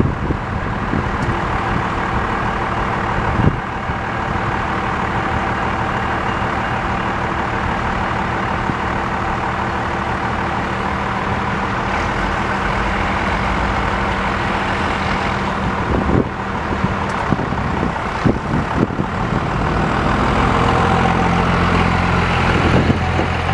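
Road traffic waiting at a railroad crossing with engines idling. Near the end the engines speed up as the vehicles pull away across the tracks, and a few short knocks come through along the way.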